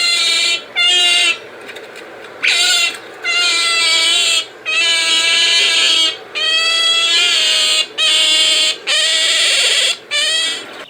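Otter calling: a series of about nine loud, high-pitched squealing calls, each lasting half a second to a second or so, with short pauses between them.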